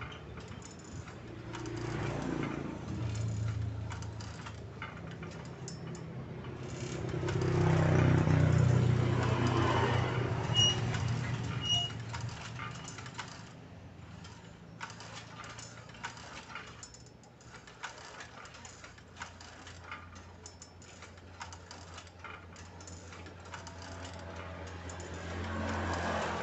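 Steel planting mechanism of a homemade manual rice transplanter clinking and rattling as the seedling pusher is worked up and down by hand. A low rumble swells and fades near the middle.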